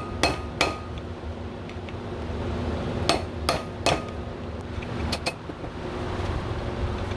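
Hammer blows on a wedge driving a wheel-bearing race out of a brake rotor hub: seven sharp metal-on-metal strikes in three groups (two at the start, three about three seconds in, two near five seconds), with a brief metallic ring after the first blows.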